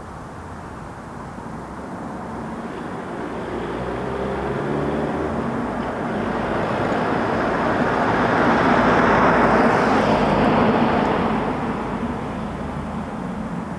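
A vehicle passing by: its engine and road noise grow slowly louder to a peak about nine seconds in, then fade away.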